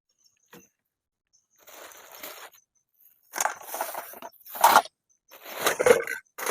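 Rustling and crunching in several bursts, the loudest near the end.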